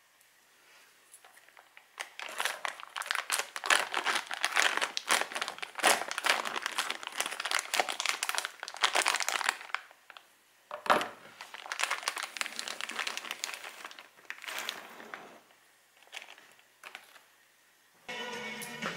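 Foil wrapping crinkling and crumpling as it is torn open around a new drive chain, in bursts with short quiet gaps and one sharp click partway through. Background music begins near the end.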